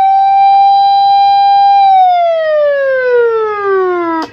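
The 1986 Nissan Safari fire truck's siren sounding loudly: one wail held at a steady pitch for about two seconds, then falling in pitch for about two more, cut off suddenly with a click near the end.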